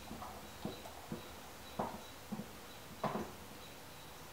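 Soft taps and knocks of a plastic electrical box being set into a hole in a plywood panel and pressed down by hand, about six in all, the strongest about three seconds in.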